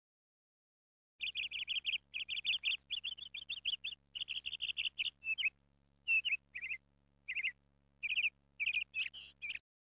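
A small bird chirping in quick runs of short high chirps with brief pauses; it cuts in about a second in and stops abruptly near the end.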